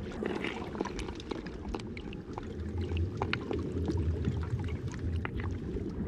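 Underwater reef ambience: a low, steady wash of water with scattered sharp clicks and crackles.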